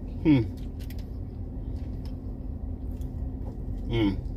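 A man eating makes two short closed-mouth "mm" murmurs, one just after the start and one about four seconds in. They sound over a steady low hum in a parked car's cabin.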